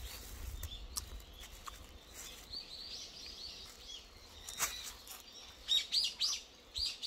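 Small wild birds chirping: a string of short, high chirps, then a louder run of about five quick chirps near the end.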